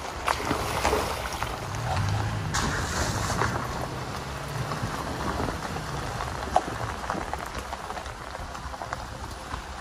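Pickup truck's tyres rolling over a wet gravel road, stones crackling and ticking under them with a steady road noise. A low engine drone comes up for a few seconds near the middle.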